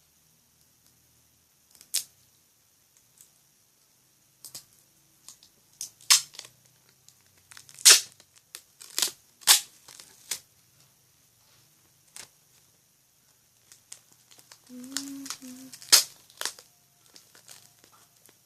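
Wide adhesive tape being pulled off the roll in short, sharp rips, repeated a dozen or so times, as it is wrapped around a foam squishy.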